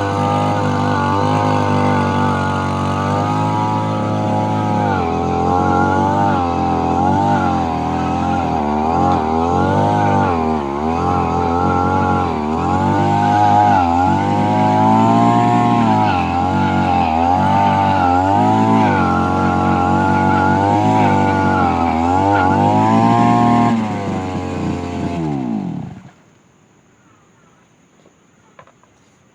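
Brush cutter engine running at high speed with its blade spinning, the pitch dipping and recovering again and again, then the engine is shut off about 26 seconds in and winds down to a stop.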